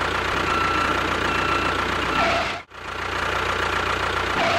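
Steady mechanical running noise like a small engine or motor, with a faint thin whine over it. It cuts out abruptly about two and a half seconds in and starts again at once.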